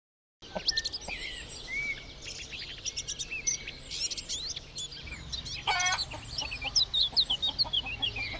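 Many birds chirping at once, quick rising and falling chirps overlapping throughout; it begins abruptly out of silence, and one louder, harsher call cuts in about five and a half seconds in.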